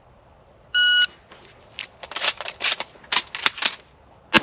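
Shot timer's start beep, then a quick run of sharp clicks as shells are loaded into an empty shotgun. The first loud shotgun report comes just at the end.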